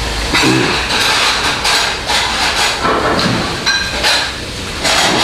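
Someone eating jajangmyeon (black-bean-sauce noodles) fast: loud slurping and chewing of the noodles, in a few noisy stretches.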